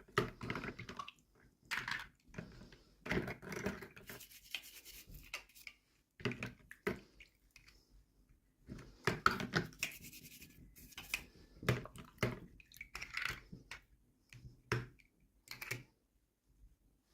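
Hands handling and opening small plastic toy packaging: irregular bursts of scratching, rubbing and clicking with short pauses between them.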